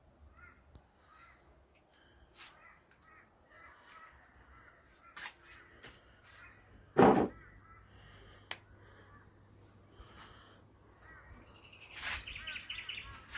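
Birds calling in the background, with a quick run of calls near the end. A single heavy thump comes about seven seconds in, and a sharp click follows a moment later.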